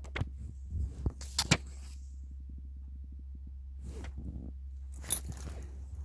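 A few sharp clicks and knocks with brief rustles, handling noise at the microphone, over a steady low electrical hum.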